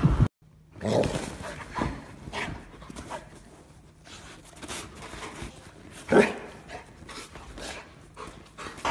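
White retriever puppy making short dog sounds at irregular intervals: pants, whines and small barks, the loudest about six seconds in.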